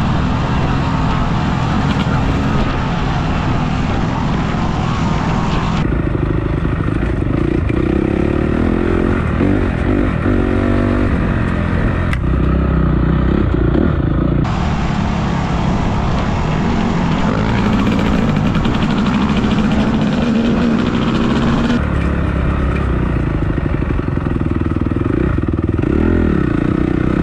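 Dirt bike engine running while riding, its revs rising and falling with the throttle. The sound is loud throughout and changes abruptly three times, where the recording cuts.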